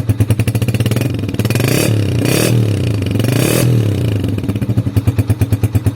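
Honda TMX 125 Alpha's single-cylinder four-stroke engine running through a Yutaka Contact Point 125 aftermarket exhaust. It idles with a distinct pulsing beat, is revved twice, at about two seconds and again at about three and a half seconds, and falls back to idle.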